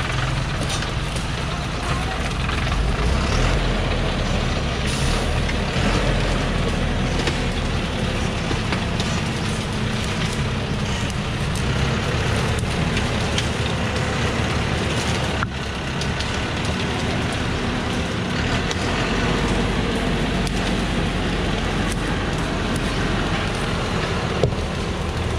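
Thaco Forland truck's diesel engine running steadily as the truck crawls over cut acacia branches, with twigs and leaves crackling and snapping under its tyres.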